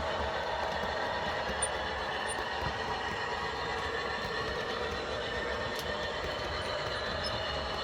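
Model train running steadily along the track: a continuous motor whine with wheel and rail noise.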